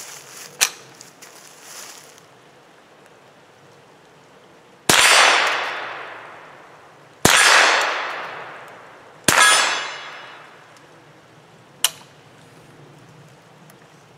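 Three .22 LR rifle shots from a Mossberg Blaze, about two seconds apart, each followed by a long fading ring of steel targets being hit. There are sharp single clicks near the start and near the end.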